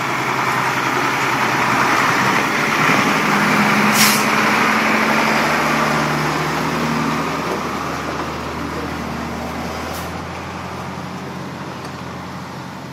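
Isuzu fire tanker's diesel engine running as the truck drives slowly past, loudest about four seconds in and then fading as it moves away. There are two short, sharp hisses, about four and ten seconds in.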